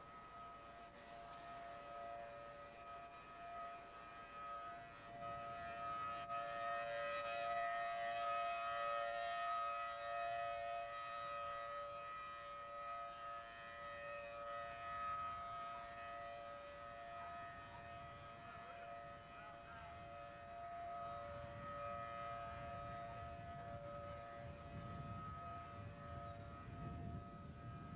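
Outdoor tornado warning siren sounding a steady multi-tone note that swells and fades, loudest a quarter of the way in. A low rumble joins it during the last few seconds.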